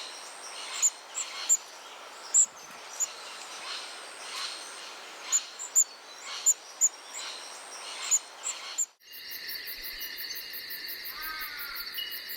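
A flock of red-browed finches calling: short, thin, very high-pitched peeps, scattered irregularly. About nine seconds in, the sound cuts abruptly to a steady, fast-pulsing insect chorus with a few short bird notes over it.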